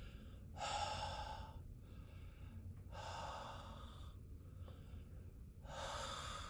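A man breathing deeply through his mouth: three long, airy breaths of about a second each, spaced a couple of seconds apart.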